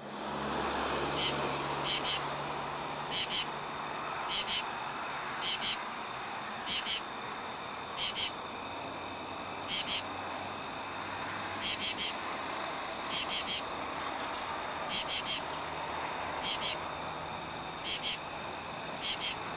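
Male common true katydid (Pterophylla camellifolia) calling for females: short high-pitched calls of two or three quick pulses, repeated about once a second, over a steady background hum.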